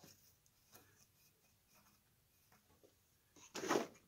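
Faint handling sounds at the workbench, then, near the end, about half a second of metal hand tools rattling and scraping as the pliers are picked up.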